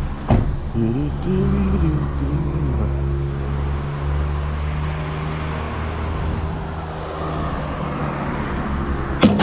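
Van engine running with a steady low hum, with a short click just after the start and a sharp bang near the end.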